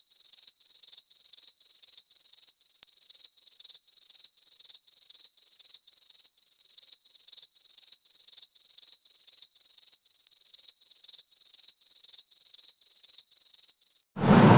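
A cricket chirping in a steady rhythm of about three high, pure chirps a second. It cuts off abruptly near the end, when a loud running engine noise starts.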